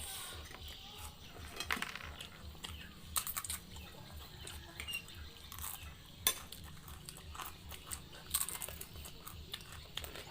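Close-miked chewing of fried noodles, with scattered sharp clicks of cutlery on a plate or bowl.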